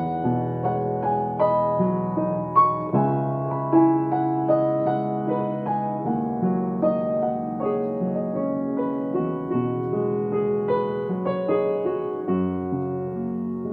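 Solo piano playing: a melody over held chords that ring on and change every few seconds, with a few louder struck notes.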